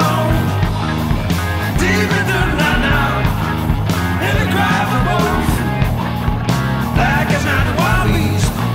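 Blues rock studio recording, the full band playing drums, bass, keys and guitars under a lead line of notes bending up and down in pitch, in a stretch with no vocal words.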